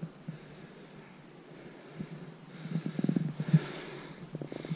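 A person breathing hard close to the microphone while climbing a steep slope, with loud, rough huffs of breath about three seconds in and again just before the end.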